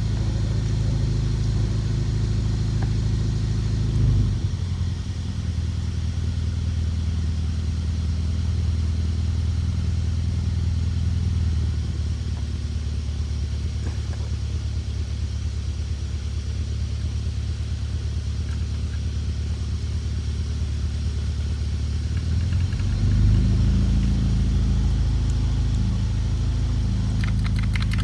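BMW M62TU 4.4-litre V8 engine running steadily, its note shifting about four seconds in and again near 23 seconds. It is the sound the owner offers as timing chain rattle or slap from a cracked main chain guide and slack, stretched chains.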